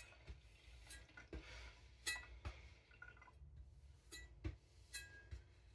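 Near silence with a few faint, scattered clicks and light clinks.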